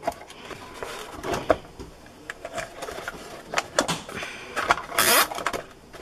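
Plastic cable ties being pulled shut through a styrofoam plate: scattered clicks and handling noise, with a short zip of the tie's teeth through the catch about five seconds in.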